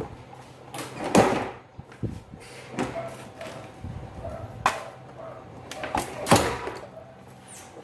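A handful of sharp metal knocks and clanks from work on a scooter's rear wheel and its stand, the loudest about a second in and another near the end.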